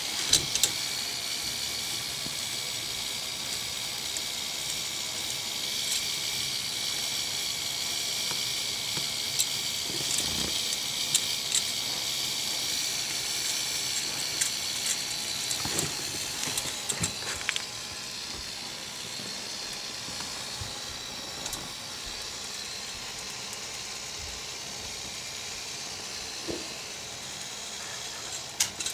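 K'nex roller coaster's motor and gearbox driving the lift, running with a steady high whir and scattered sharp clicks.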